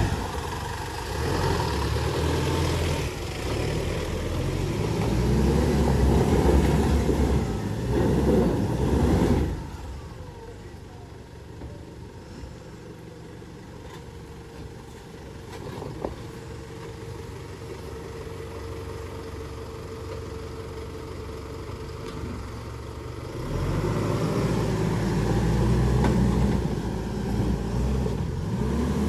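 Mitsubishi L200 Triton pickup's engine pulling under load up a dirt hill, its revs rising and falling. About a third of the way in it drops to a much quieter run for over ten seconds, then pulls hard again near the end.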